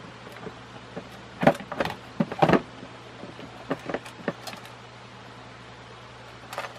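Clicks and clatters of ceiling fan parts and hardware being handled during assembly. A quick run of them comes about a second and a half in, the sharpest at its start, then a few lighter ones and a last one near the end, over a steady low hum.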